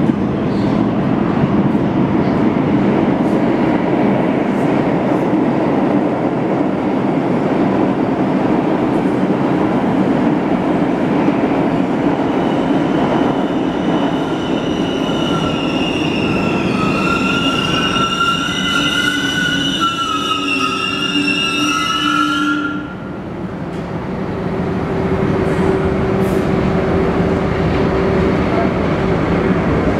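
New York City subway trains rumbling through an underground station. About a third of the way in, a high, wavering wheel squeal rises over the rumble and lasts roughly ten seconds, then stops suddenly. The noise eases briefly, then another train's rumble builds near the end.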